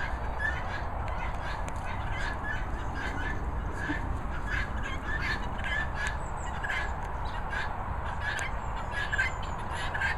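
Peafowl calling in a steady run of short, repeated honks, about two or three a second, over a steady low rumble.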